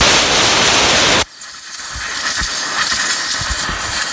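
Compressed-air blow gun hissing as it blasts into a corroded round trailer connector socket, blowing it out to clear the fault that keeps the marker lights on. A very loud hiss for just over a second, then after a short dip a second, steadier hiss with low spluttering pops.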